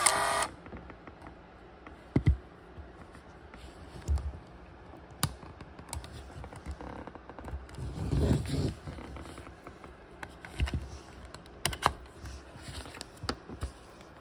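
Scattered small clicks and rubbing as fingers handle a Canon Sure Shot 35 mm film camera's plastic body and its switches, with a longer stretch of handling noise midway.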